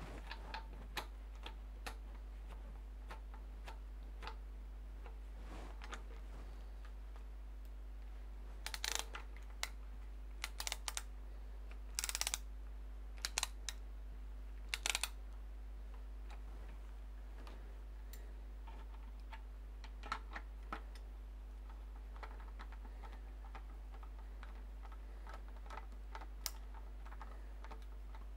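Scattered small clicks and short scraping rasps of a screwdriver turning out the screws on a CPU cooler, with metal parts being handled; the louder scrapes come in a bunch in the middle.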